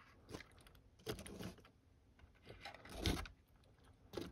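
Faint handling noises as a plastic HO-scale model locomotive is moved and turned by hand: several short scrapes and rustles, with a louder bump about three seconds in.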